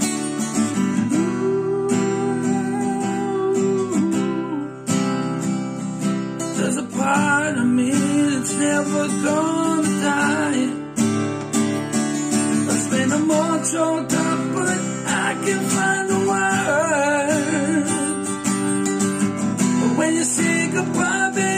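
Acoustic guitar strummed, with a man singing over it in long, wavering held notes.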